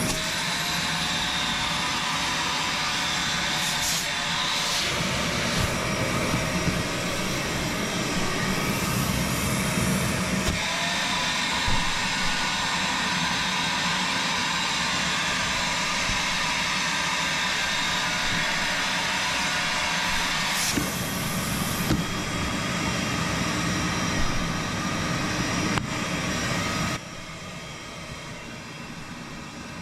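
Milwaukee M18 Fuel cordless wet/dry shop vacuum running with a steady motor-and-airflow noise. Its tone changes several times as the suction is tested, and the sound gets much quieter near the end.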